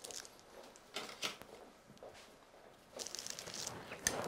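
Soft rustling and crinkling from handling at a work counter, in two short stretches, with a sharp click near the end.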